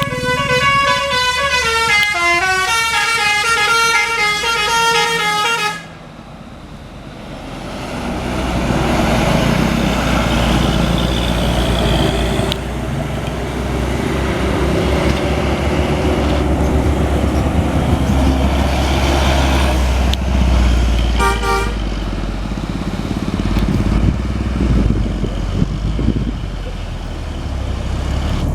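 A bus's Basuri telolet horn plays a quick melody of stepped notes, then cuts off suddenly about six seconds in. Heavy bus engine and road rumble then builds up and runs on, with a brief second burst of horn notes about two-thirds of the way through.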